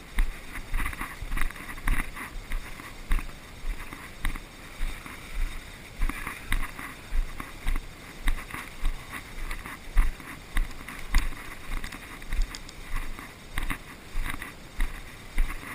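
Footsteps of a person walking at an even pace, about one and a half steps a second, each step a dull thump with a crunchy scrape, with light rustling of clothing and gear.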